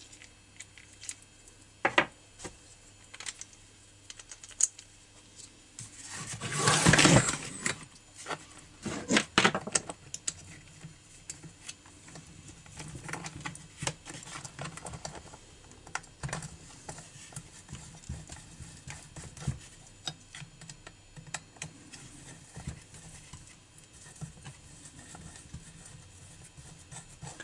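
Small clicks and clatter of hand tools and small parts as a new heat insulator is fitted to a two-stroke trimmer's carburettor intake and screwed down with a screwdriver. A louder rustling scrape about seven seconds in lasts a second or two.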